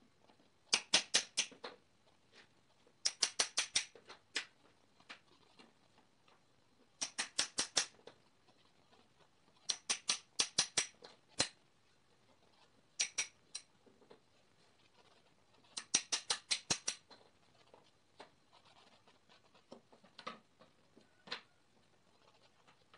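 Claw hammer tapping nails in a wooden seat board, in six quick bursts of five to seven light taps each. Fainter scattered knocks of wood being handled near the end.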